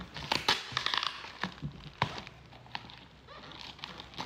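Cardboard box and plastic wrap being handled and pulled apart: crinkling and rustling with several sharp crackles in the first second or so, then softer handling with an occasional click.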